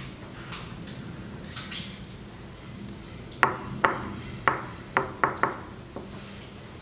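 Soft handling noises, then a quick run of about six light taps and clicks from filling being scooped and pressed by hand into a silicone pyramid mould.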